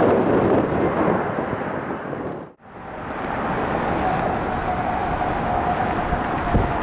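Jet airliner engine noise mixed with strong wind buffeting the microphone, broken by a sudden cut to silence about two and a half seconds in. After the cut, steady jet engine noise returns with a thin, steady whine.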